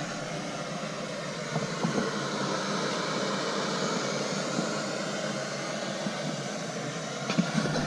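Camping stove burner hissing steadily while boiling water.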